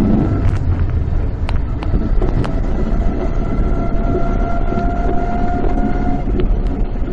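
Road noise of a moving vehicle: a steady low rumble of engine and tyres with scattered rattling clicks, and a faint steady whine for a few seconds in the middle.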